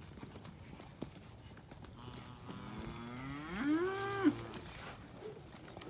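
A calf bawling once: a call of about two seconds that starts low, rises in pitch and breaks off.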